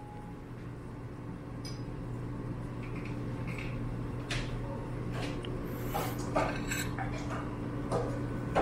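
Scattered clinks of dishes and cutlery, sharper and more frequent in the second half, over a steady low hum.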